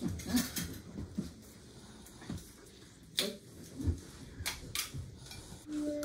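Scattered clinks and taps of cutlery and dishes at a dinner table, a handful of separate sharp clicks over quiet room noise.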